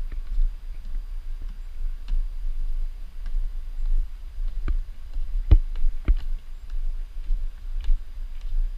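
Footsteps on stone trail steps: irregular sharp clicks and knocks, the two loudest a little past halfway through, over a steady low rumble.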